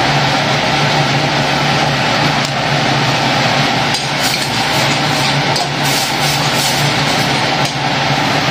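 Steady mechanical hum with hiss, with a few light clinks of a metal spoon against a stainless steel pot as soup is stirred.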